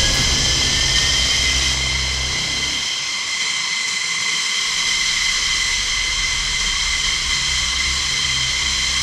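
Jet engines running on the ground: a steady, high-pitched turbine whine over a low rumble. The rumble briefly drops away about three seconds in and then comes back.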